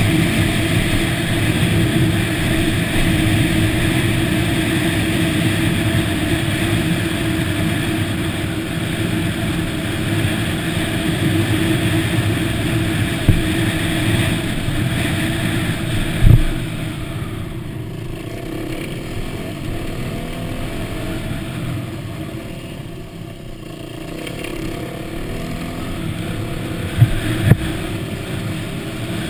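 Yamaha WR250 dirt bike engine running steadily under way on a dirt single-track. It goes quieter for several seconds past the middle, then comes back up, with a few sharp thumps scattered through.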